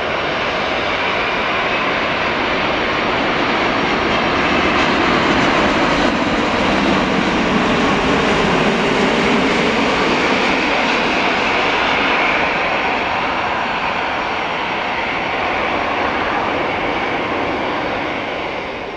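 Boeing 787-8's twin Rolls-Royce Trent 1000 turbofans on final approach: a steady jet roar that swells as the airliner passes close by, then eases slightly as it nears the runway.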